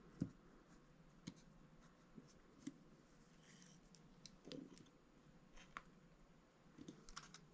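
Mostly quiet, with a handful of faint, sharp clicks and taps scattered through, the loudest just after the start: needle-nose pliers and armature wire being handled on a work table.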